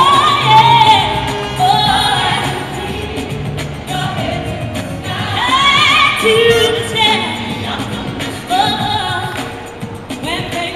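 Live gospel vocal group singing over a band, with long held, wavering sung notes and a steady instrumental backing.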